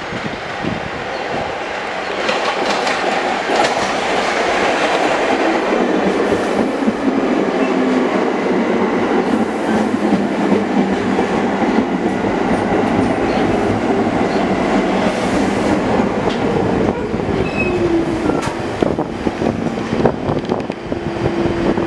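R46 subway train entering a station and slowing alongside the platform: a steady rumble of steel wheels on rail with repeated clicks over rail joints, and a motor whine that falls in pitch as it slows.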